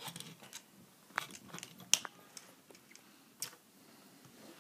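Plastic clicks and snaps of a Transformers MechTech Voyager Megatron toy as its parts are folded and clicked into place, several sharp clicks with the sharpest about two seconds in.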